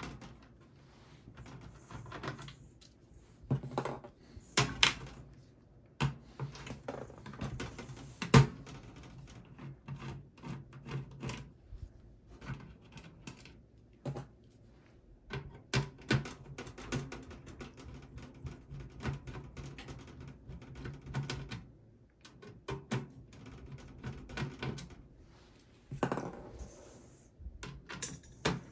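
A Phillips screwdriver working the motherboard screws out of a steel desktop PC chassis: irregular clicks and knocks of metal on metal and of handling, with a few louder knocks.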